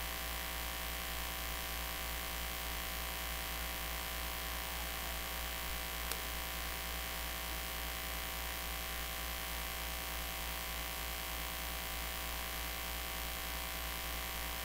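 Steady electrical mains hum with a hiss from the stage sound system, and one faint click about six seconds in.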